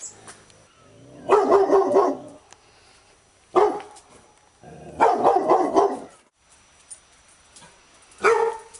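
Labrador retriever barking in bursts: a quick run of barks about a second in, a single bark near three and a half seconds, another run around five seconds, and one more bark near the end.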